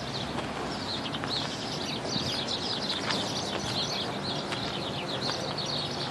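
Small birds chirping busily in quick, repeated calls over a steady low hum.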